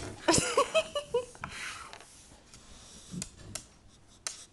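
Small long-haired dog making short high whines and breathy sniffs and snorts right at the microphone, with a few sharp clicks and knocks. The whines come in the first second, followed by a sniff.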